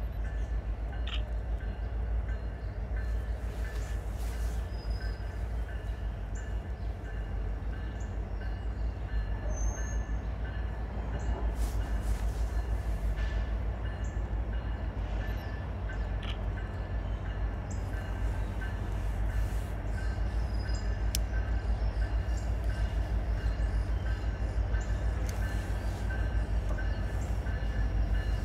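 Diesel freight train rumbling: a continuous low pulsing engine drone that grows gradually louder, with a thin steady high squeal above it.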